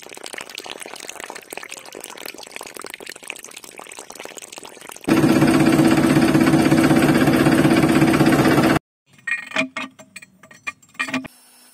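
Water squirting from a small tanker spout and splashing on soil with a steady hiss, then a loud, steady motor hum for about four seconds. Near the end, a few clicks and short squeaks from a miniature hand pump's handle being worked.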